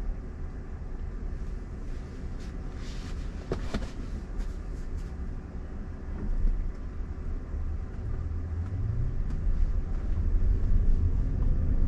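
Road and tyre rumble heard inside a moving Waymo robotaxi's cabin, steady and low, growing louder over the last few seconds. A few faint clicks come about three and a half seconds in.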